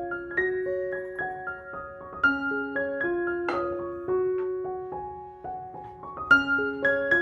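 Background music: a gentle solo piano melody of single sustained notes and broken chords, repeating a short phrase about every four seconds.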